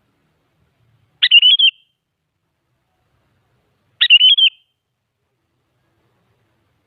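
Sooty-headed bulbul (kutilang) singing two short phrases about three seconds apart, each a quick run of notes lasting about half a second.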